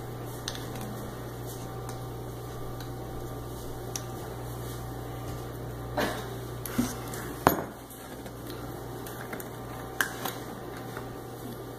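Plastic bottles, a jug and their caps handled and set down on a kitchen countertop: a few sharp clacks about six, seven and a half and ten seconds in, the one at seven and a half the loudest, over a steady low hum.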